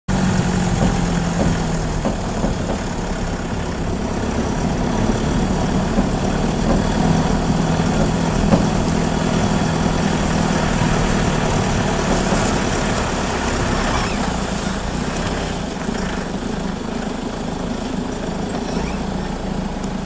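Vehicle engine running steadily as the vehicle drives slowly across a grass field, heard from inside the cab as a continuous low drone.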